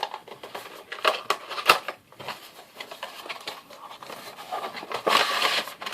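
Fingerboard deck packaging being unwrapped by hand: crinkling and rustling with small clicks and taps, louder near the end.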